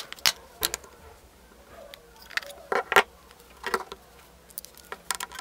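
Irregular sharp plastic clicks and snaps as the Fairphone 4's snap-on back cover is unclipped from the phone, with the cover and phone knocking lightly on a wooden table; the loudest snaps come about three seconds in.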